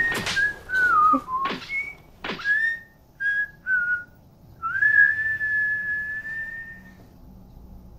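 Someone whistling a short tune: one pure note that slides up and down in short phrases, with two quick swooping sounds between the first and third seconds, then a long held note from about four and a half seconds in to about seven.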